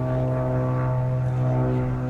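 A steady engine drone: a low, even hum with overtones that holds unchanged.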